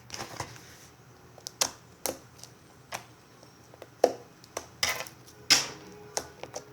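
Slime being handled and squished, giving irregular sharp pops and clicks, about ten of them, some louder than others.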